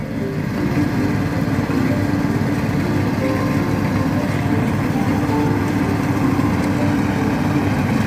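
Rice combine harvester's engine running steadily as the machine cuts standing rice, a dense low drone at an even level.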